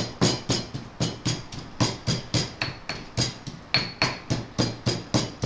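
Pestle pounding onions in a mortar, with steady, even strokes about four a second.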